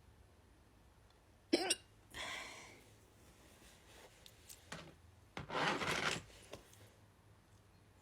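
A person's hiccup, one short sharp gulp with a brief voiced catch about a second and a half in, followed by breathing out, with a longer breath near the end.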